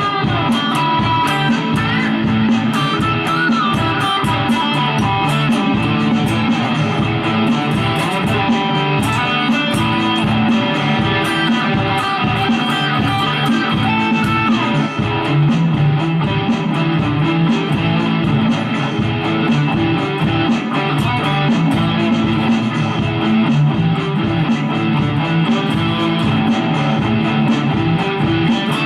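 Electric guitar with active humbucking pickups, played through a Mooer GE200 amp modeller: continuous picked and strummed noodling, with a few bent notes near the start.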